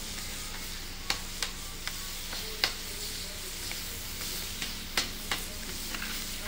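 Kothu parotta being chopped on a hot flat griddle: a metal blade strikes the griddle in about six sharp clanks at uneven intervals, the loudest about two and a half and five seconds in. Steady sizzling of the frying food runs underneath.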